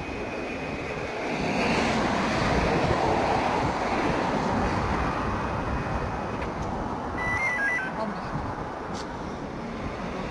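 Road traffic passing on a highway, growing louder about a second and a half in and easing off in the second half. About seven seconds in, a short run of electronic beeps steps down in pitch.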